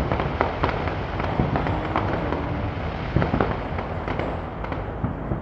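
Fireworks display: irregular bangs and crackling pops in quick succession over a steady background rumble.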